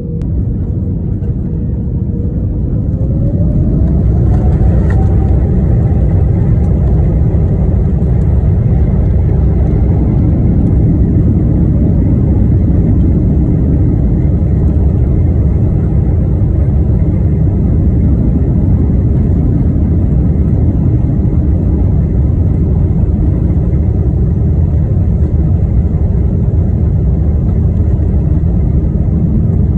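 Airliner's jet engines spooling up to takeoff thrust, heard from inside the cabin. A whine rises in pitch a few seconds in as the noise grows, then loud, steady engine noise and rumble carry on as the plane accelerates down the runway.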